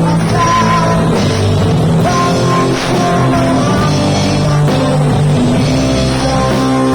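Rock music played loud on guitar, with singing and drums.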